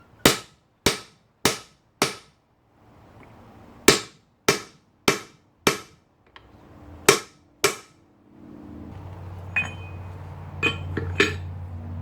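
Forge being lit: ten sharp cracks in runs of four, four and two, about two a second. A steady low hum of the forge starts about eight and a half seconds in, with a few fainter clicks over it.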